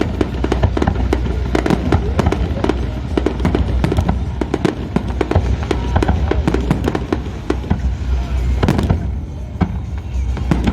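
Fireworks going off in rapid succession: a dense run of bangs and crackles over a steady low rumble, thinning briefly about nine seconds in before picking up again.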